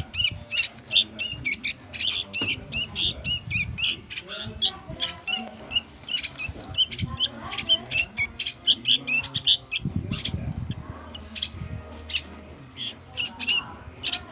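Baby songbirds begging with rapid, high-pitched squawking chirps, several a second, as they are hand-fed.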